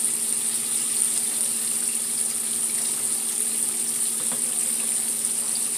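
Breaded catfish nuggets deep-frying in a skillet of hot oil: a steady sizzle, with a faint steady hum underneath and a light click about four seconds in.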